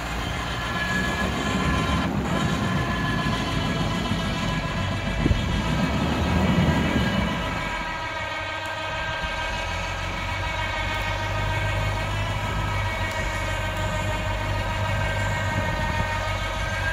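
Swamp buggy's engine running under load with a steady high whine while it hauls itself out of bog mud on a taut winch cable. A heavier low churning swells about five to seven seconds in.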